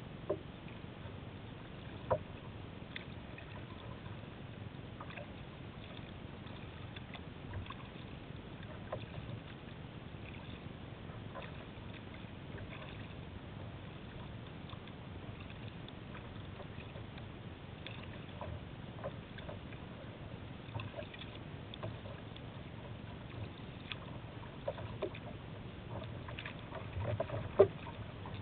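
Water lapping and splashing against a kayak's hull as it moves along, a steady wash with scattered small splashes. A few sharp knocks stand out, the loudest near the end.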